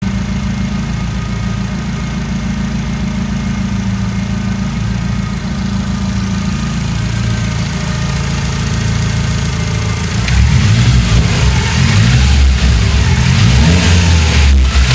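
Nissan SR20DET turbocharged 2.0-litre four-cylinder engine idling steadily, then revved up and down several times from about ten seconds in, its exhaust now running without leaks.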